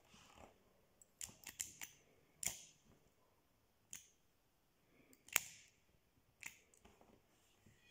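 Vintage 1960s Cordial gas lighter being worked by hand: a series of small metallic clicks from its lever and mechanism, several in quick succession near the start, with the loudest click about five seconds in followed by a short hiss as it lights.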